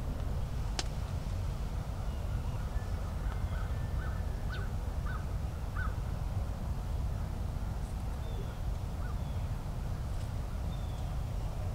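A bird calling, two runs of short repeated calls about two a second, over a low steady rumble; a single sharp click about a second in.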